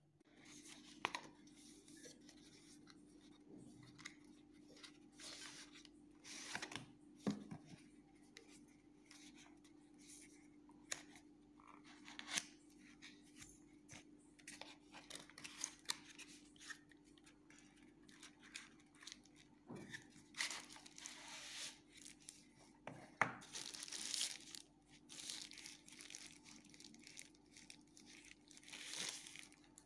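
Faint rustling, crinkling and light knocks of a cardboard box being opened by hand and a beard trimmer being unwrapped from its paper sleeve, coming in scattered short bits over a steady low hum.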